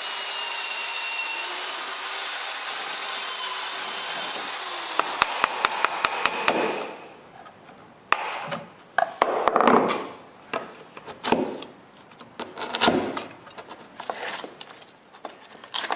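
A power tool runs steadily for about seven seconds while shortening drawer slides to fit, its pitch sinking a little before it stops. Irregular knocks and scraping of workshop handling follow.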